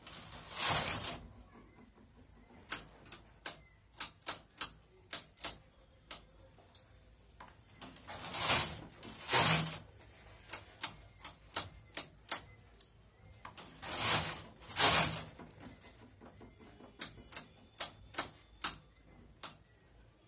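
Hand-operated flatbed knitting machine: sharp clicks of metal needles being pushed and set by hand on the needle bed, at times several a second, with three louder, longer clattering runs of the carriage being slid along the bed, about a second in, at around eight to ten seconds, and at around fourteen to fifteen seconds.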